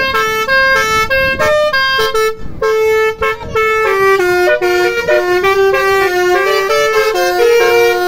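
Telolet basuri musical horn playing a fast melody of short stepped notes, one after another.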